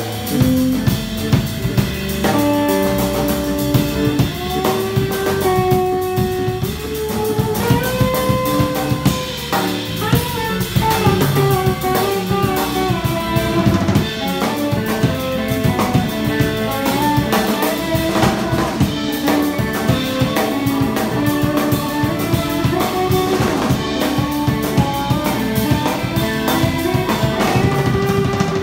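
Live instrumental band: a drum kit keeping a busy beat with bass drum and rimshots, under electric bass and a pedal steel guitar playing sustained notes that slide smoothly up and down in pitch.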